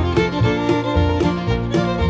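Upbeat background music with fiddle and guitar in a bluegrass style, with a steady beat.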